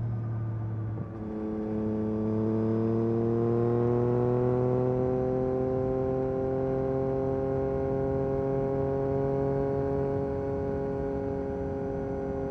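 2022 Yamaha MT-09 SP's inline-three engine through an Akrapovic Carbon Racing exhaust, on the move. About a second in the sound dips briefly, then the engine note climbs smoothly for a few seconds and settles into a steady pull.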